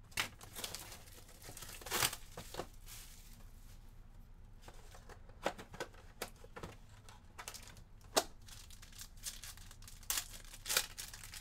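A cardboard trading-card box being torn open by hand and the foil-wrapped pack inside handled. Irregular tearing and crinkling is broken by a few sharp snaps.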